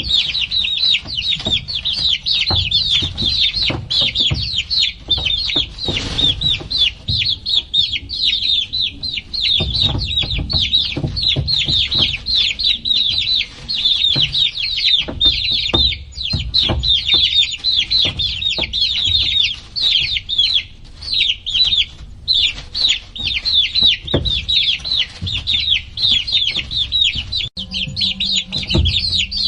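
A group of baby chickens peeping nonstop: many short, high peeps, each sliding downward, overlapping one another, with scattered low knocks and bumps underneath.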